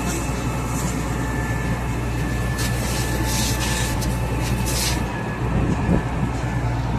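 Heavy diesel engine of a concrete pump truck running steadily with a low drone, with short bursts of hiss about three and five seconds in.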